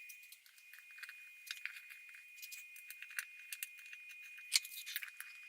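Wrench and valve cover bolts on a Ford 302 V8 giving off irregular light metallic clicks and clinks as the bolts are run in and snugged down by hand, with one sharper clink about four and a half seconds in.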